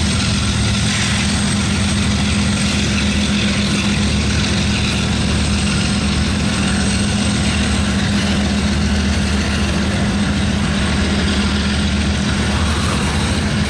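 Canadian National diesel freight locomotives running with a steady, low engine drone and an even background hiss.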